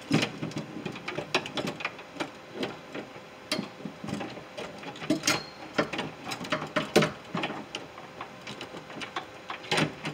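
A new window regulator for a 2005 Ford F150's driver door, metal rails with its motor attached, clicking, clanking and rattling against the door's inner sheet metal as it is worked into the door cavity, in irregular knocks with a few louder ones.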